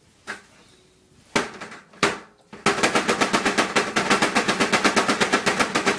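Fists hitting a black free-standing punching bag: a few single blows, then from a little under three seconds in a rapid, even flurry of about ten punches a second.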